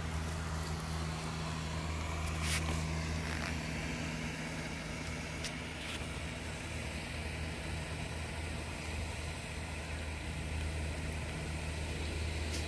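Steady low motor hum with a few faint clicks.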